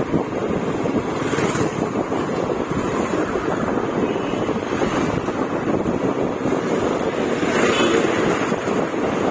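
Steady wind rush buffeting the microphone while riding a motorbike, with road noise underneath and a couple of faint swells as traffic passes.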